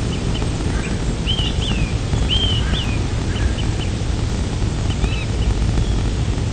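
Birds chirping in short, arched calls, a small cluster of them between about one and three seconds in and a few more later, over a steady low outdoor rumble.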